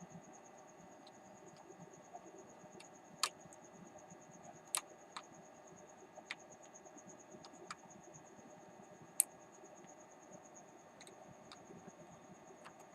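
Faint, scattered sharp clicks and taps, about half a dozen, the loudest about nine seconds in, over quiet room noise with a steady high-pitched whine.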